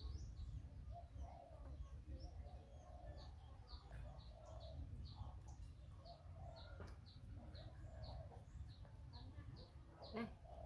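A small bird calling faintly and repeatedly: a long run of short, high, falling chirps at about three a second, over a low outdoor rumble.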